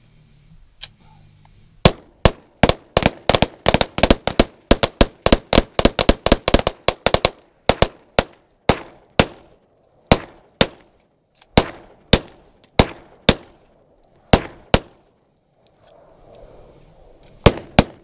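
A gun fired in rapid succession: a fast string of shots, about five a second, for several seconds, then slower single shots about a second apart, a pause, and a quick few more near the end.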